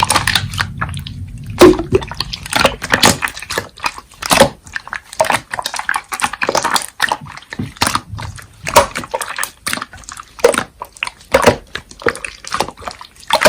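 Slime being squeezed and kneaded by hand, making a rapid, irregular run of wet, sticky clicks, pops and squelches.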